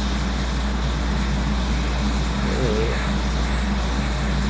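Steady hiss of an electric blower with a low hum under it, running evenly at the repair bench while a PS5's damaged ports are desoldered. A faint murmur of a voice about two and a half seconds in.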